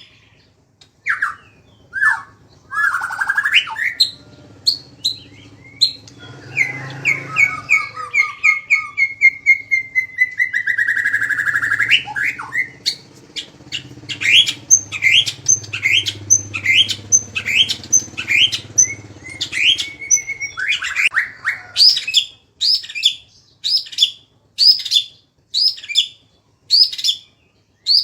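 A songbird singing: scattered sweeping whistled chirps, then a long rolling trill that dips and rises in pitch, then a long, evenly spaced run of sharp rising whistled notes, about two a second.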